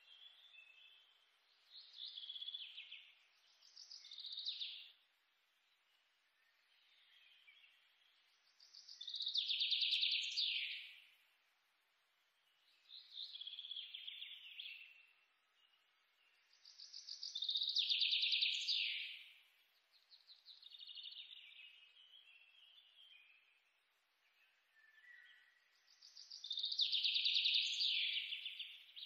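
Small birds chirping: short trilled phrases come every few seconds, with a louder, falling trill about every eight to nine seconds and quiet gaps between.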